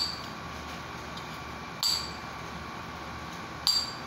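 A spoon clinking against a dish three times, about two seconds apart, each clink ringing briefly.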